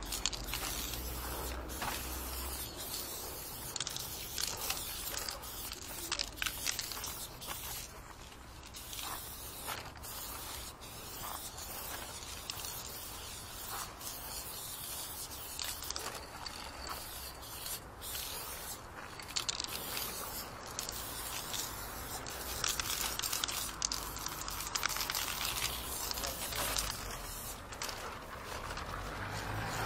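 Aerosol spray paint can hissing in many short, uneven blasts as it is sprayed onto a wall.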